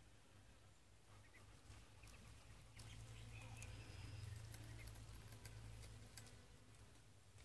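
Quiet poultry yard: ducks and ducklings feeding, with a few faint high chirps and scattered soft pecking clicks over a low steady hum that swells in the middle.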